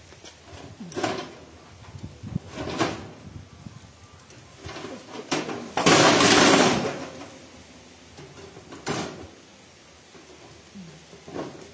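Handling at a charcoal barbecue grill: scattered knocks and clatters of its metal rack and parts, with a louder rush of noise lasting about a second midway.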